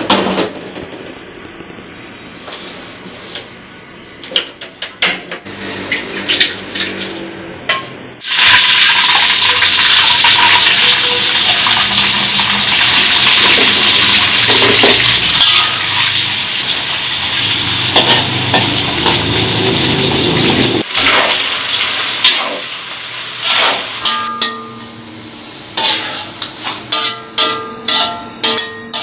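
Diced potatoes frying in hot oil in a steel wok: a loud, steady sizzle that starts suddenly about eight seconds in and dies down about two-thirds of the way through. Near the end, a metal slotted skimmer clinks and scrapes against the wok several times as the potatoes are stirred and lifted out.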